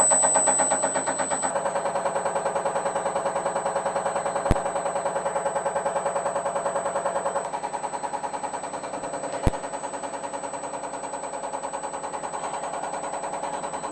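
Diesel injection test bench running an electronic unit pump test, a fast, steady mechanical pulsing from the drive and pump. Two sharp clicks come about five seconds apart.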